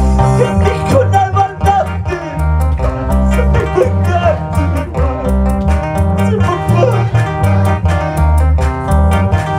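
Live band music without words: a steady beat over heavy electric bass notes and keyboards, with a wavering lead melody on top.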